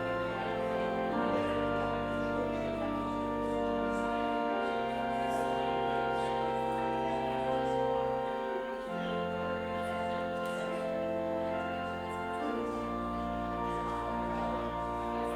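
Slow instrumental music of long sustained chords over a held bass note, the harmony changing every few seconds.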